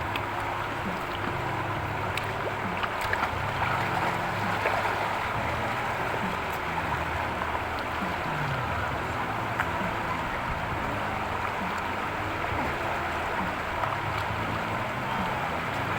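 River water rushing steadily in a strong current.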